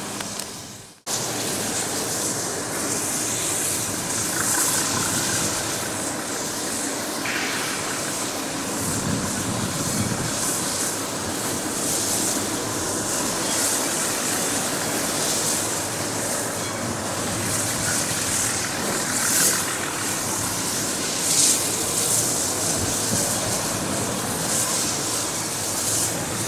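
Steady hiss of a steam locomotive standing in steam, the Caledonian Railway No. 419 tank engine, over the general rumble of a railway yard, with a few brief louder puffs later on.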